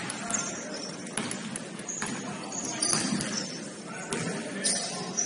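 Basketball game sounds on a gym court: sneakers squeaking in short high chirps and the ball bouncing a few times, over the hum of a large hall.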